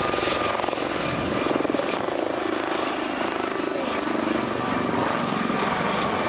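Helicopter flying a low aerobatic display, its rotor beating with a rapid, even chop.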